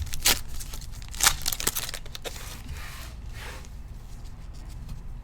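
Trading card packs and cards being handled: foil pack wrappers crinkling and tearing, with a few sharp snaps and clicks in the first two seconds.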